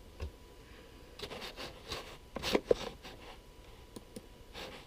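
Scattered soft clicks and scrapes of hands working a computer keyboard and mouse, in three short clusters, with one brief squeak-like blip near the middle.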